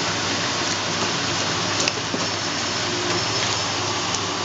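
A steady rushing noise with a low hum underneath, and a few faint clicks from a 3-month-old puppy chewing on a raw chicken neck.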